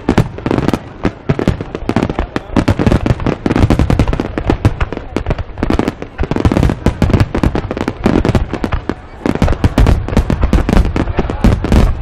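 A dense barrage of aerial firework shells bursting, with many loud bangs overlapping in rapid succession and no break.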